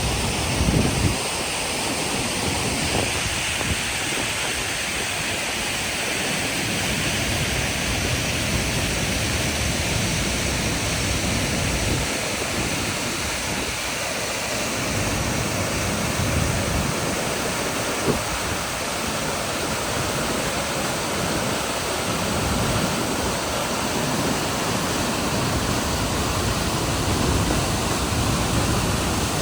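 Waterfall: a steady, even rush of falling water across the whole range of pitch, with irregular low rumbling swells underneath.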